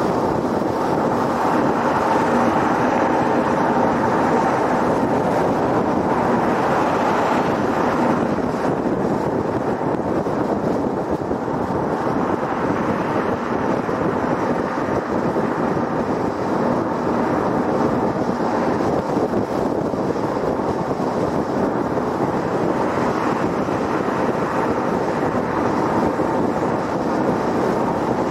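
Steady tyre and wind noise of a car driving at highway speed, an even rushing sound with no breaks.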